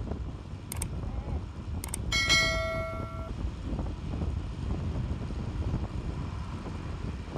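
Wind and road rumble from a moving motor scooter, steady throughout. About two seconds in, a horn gives one flat, even-pitched honk lasting just over a second, the loudest sound here.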